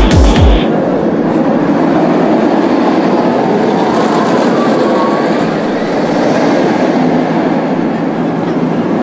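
Steel inverted roller coaster train rumbling along its track in a steady, loud rush. Music with a heavy kick-drum beat is cut off about half a second in.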